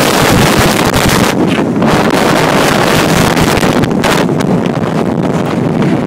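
Strong tropical-storm wind blasting across the microphone: a loud, steady rush of wind noise that eases briefly about a second and a half in and again about four seconds in.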